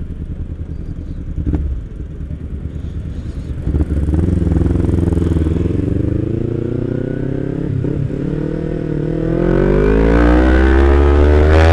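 Kawasaki Z250 parallel-twin with a Prospeed aftermarket exhaust idling, then about four seconds in pulling away: the engine note climbs as it accelerates, dips briefly at a gear change, and climbs again, louder, near the end.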